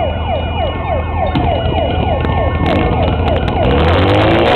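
Portable fire pump's engine running with a steady drone that grows louder near the end, under a siren-like wail falling in pitch over and over, several times a second. Clicks and clatter join in during the second half.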